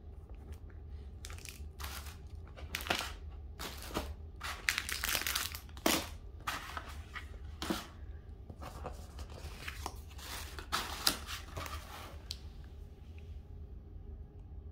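Tissue paper and clear plastic packaging sleeves crinkling and rustling in irregular bursts as stationery items are handled and packed into a tissue-lined box, dying down about twelve seconds in.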